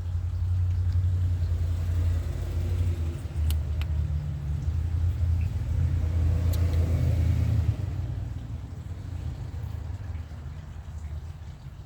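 A 1994 Toyota Pickup's 22R-E four-cylinder being cranked over on the starter without firing, a pulsing low churn that stops about eight seconds in, leaving a quieter rumble. This is a no-start caused by a jumped timing chain.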